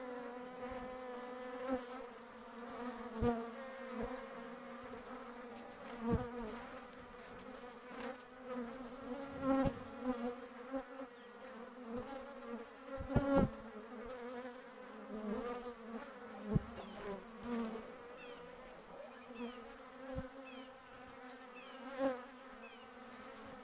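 Honeybee buzzing with its wings: a steady hum that wavers in pitch. Several sharp knocks break in, the loudest about 13 seconds in.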